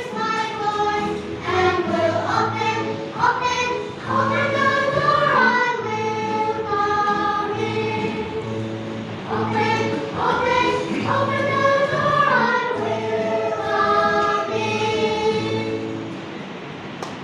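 Children's choir singing a gospel song, with held and gliding sung notes.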